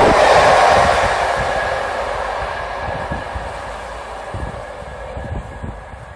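A train passing at speed and running away into the distance: a broad rumble and rush of wheels on rail with scattered low wheel beats, fading steadily throughout.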